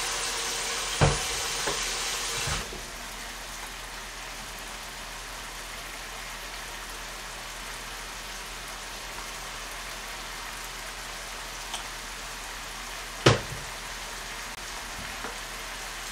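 Glass noodles and vegetables sizzling in a wok over a gas burner, cooking in the water released by the onions and cabbage: a steady hiss that drops in level about two and a half seconds in. A sharp knock about a second in and a louder one near the end.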